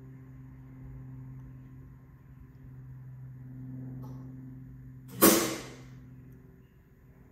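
A short, loud hiss about five seconds in, coming on sharply and dying away within about a second, as the animatronic prop's fog jet fires, over a steady low electrical hum.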